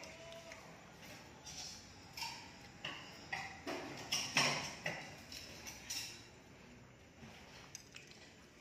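A string of light clicks and clinks from bamboo satay skewers against a ceramic plate, as someone eats. They are loudest about four seconds in, then die down.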